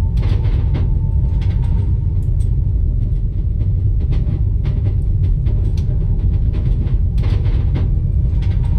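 Moving train carriage heard from inside: a deep, steady rumble with scattered clicks and rattles, and a short rushing hiss about seven seconds in.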